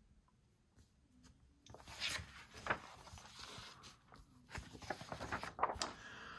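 Sheets of printed paper being handled and shifted about, making soft rustles with scattered short crackles and taps that start about two seconds in.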